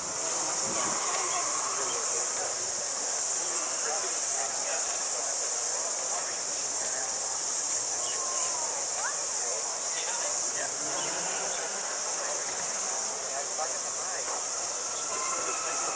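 Steady, high-pitched chorus of cicadas droning without a break, with faint voices of people around underneath.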